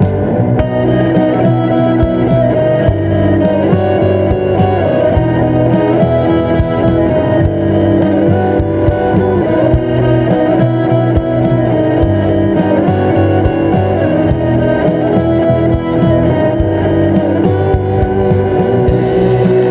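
Guitar-driven alternative rock song playing, with strummed guitars over a steady beat.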